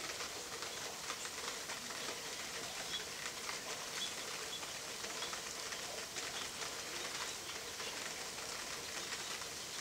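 Steady rain pattering, a dense even fall of small drops.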